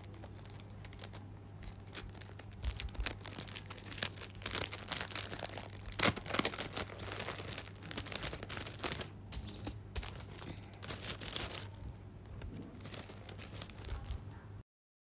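Thin clear plastic bag crinkling and rustling in quick irregular crackles as a rapid test cassette and swab are handled and packed into it, over a steady low hum. The crackling is busiest in the middle, and all sound stops abruptly near the end.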